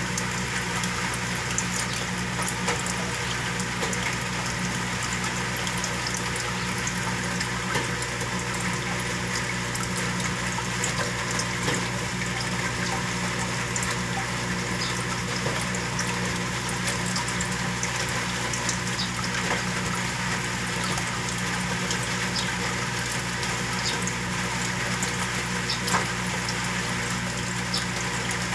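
Saltwater aquarium's pump running with a steady low hum, and water flowing and bubbling through the tank, with scattered small ticks.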